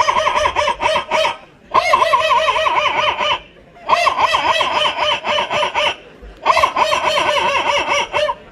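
A child imitating a chicken with the voice: four bursts of rapid, warbling cackling, each about two seconds long with short pauses between.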